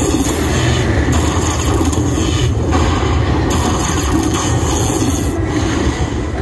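Aristocrat Lightning Dollar Link slot machine playing its lightning-strike bonus effects: a dense, rasping electric crackle over a low rumble, surging in stretches of a second or two as bolts hit the bonus symbols and the win total climbs.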